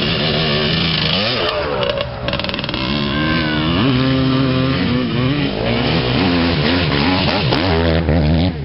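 Enduro dirt bike engine revving, the pitch rising and falling again and again as the rider works the throttle through the muddy crossing.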